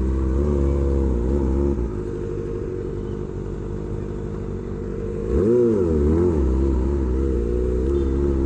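Kawasaki Ninja ZX-25R's inline-four engine, breathing through an aftermarket SC-Project exhaust, running at low speed while riding, with a quick rise and fall of revs a little past halfway.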